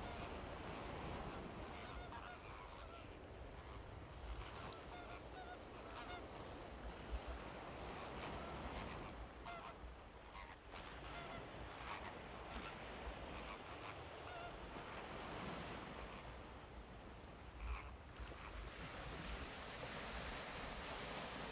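A flock of greater flamingos calling in flight: many goose-like honks overlapping throughout.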